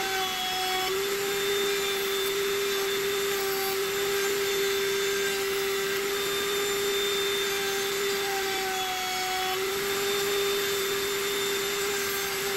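Table-mounted wood router running at a steady high-pitched whine while a small wooden insert is pushed across the bit under a push block. The pitch dips slightly a couple of times as the bit takes the cut.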